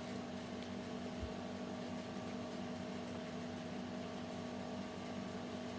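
Steady mechanical hum of a running appliance in a small room, with a faint soft low thump about a second in.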